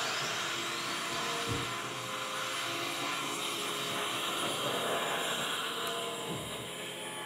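Vacuum running with a steady rush while the CNC router's spindle spins up, its whine rising in pitch over about the first second and then holding steady.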